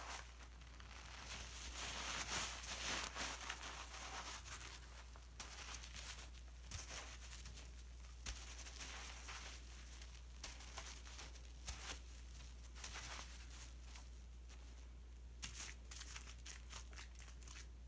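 Thick detergent foam crackling and squishing as wet sponges are pressed down into it, with fine popping bubbles. It is busiest in the first few seconds and quieter afterwards, with a short burst of crackling near the end.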